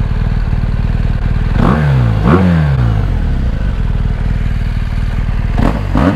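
2017 BMW R1200GS's boxer-twin engine on its standard exhaust, idling steadily and revved with quick throttle blips: two close together about a second and a half in, and another near the end, each rising sharply and falling back to idle.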